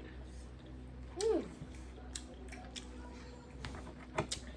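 Eating sounds from a seafood boil: scattered clicks and cracks of shells being picked apart, and chewing. About a second in comes one short vocal sound that rises then falls in pitch.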